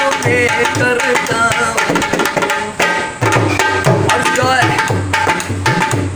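Dholak, a two-headed rope-tensioned barrel hand drum, played in a steady rhythm: deep bass-head strokes under sharp, ringing treble-head slaps.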